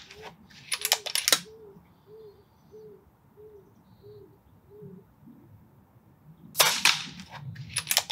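Daystate Wolverine R C Type pre-charged pneumatic air rifle in .22 firing one shot, a single sharp report about six and a half seconds in. Quick runs of sharp clicks about a second in and again near the end, a second or so after each shot, are the rifle's action being cycled to load the next pellet.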